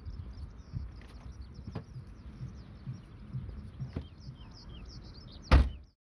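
Outdoor ambience with small birds chirping in quick short notes, a couple of faint knocks, and one loud thump near the end just before the sound cuts off.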